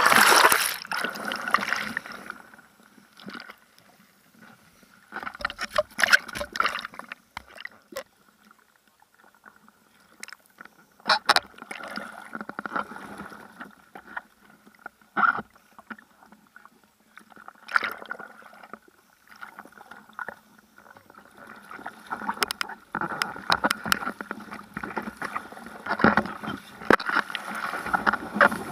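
Hands paddling through seawater beside a bodyboard: irregular splashes and sloshes close to the microphone, with quieter gaps between, louder near the start and again toward the end.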